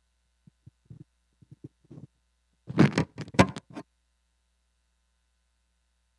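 Handheld microphone handling noise: a few light knocks, then a loud cluster of bumps and rubbing for about a second as the mic is passed from hand to hand.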